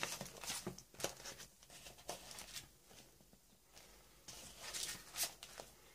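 Glossy printed paper sheets being handled and moved over a cutting mat: faint rustling and sliding with a few soft taps, a little louder near the start and again about five seconds in.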